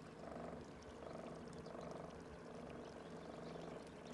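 Frogs croaking faintly in a steady series of short, repeated calls.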